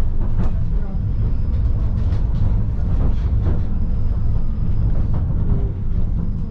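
Tram running over rails, heard from inside the car: a steady low rumble with irregular sharp clacks as the wheels cross the joints and frogs of a track junction.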